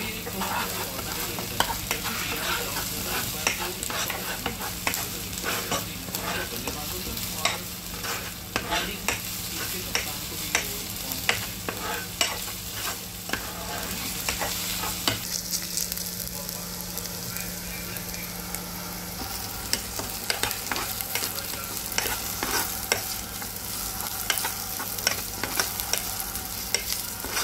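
Chopped onions, joined near the end by cauliflower pieces, sizzling in hot oil in a nonstick pan, with a plastic spatula stirring and scraping against the pan in frequent short strokes over a steady hiss.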